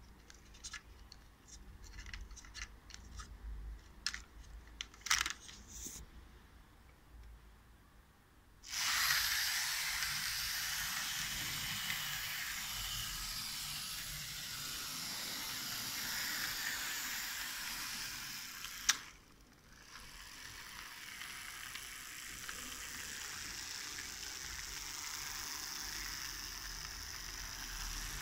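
Scattered light clicks of handling a model train's couplings, then a Lima model electric locomotive with a modified G motor starts off and runs steadily along the track pulling its coaches with a continuous whirring, rattling noise. About two-thirds of the way through there is one sharp click and the running noise drops out for a moment before coming back a little quieter.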